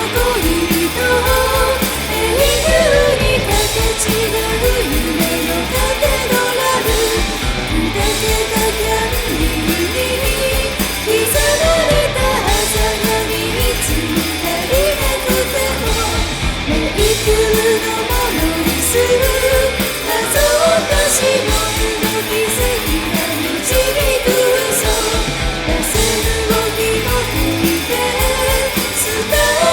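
A four-piece rock band playing at full volume: drums, bass and electric guitar, with a wavering melody line carried over the top.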